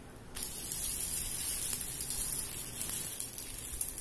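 String paratha sizzling in oil on a hot dosa tawa, the sizzle starting suddenly about a third of a second in as the paratha is flipped onto the hot oiled griddle, with fine crackling throughout.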